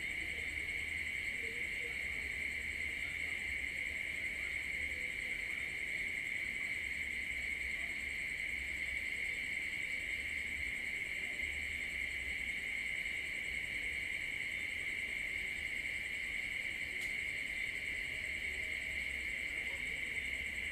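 Night-time insect chorus, a steady high-pitched chirring made of several layered tones that holds unchanged throughout.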